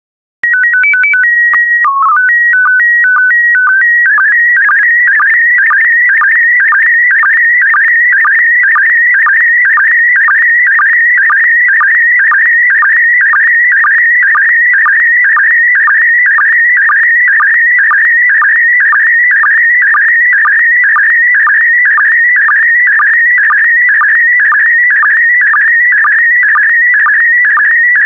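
PD120 slow-scan television (SSTV) image transmission. It opens with a short header of stepped beeps, the calibration and mode-identifying code. Then comes the picture itself: a warbling tone near 2 kHz, broken by a lower sync pulse about twice a second, once for each scanned pair of lines.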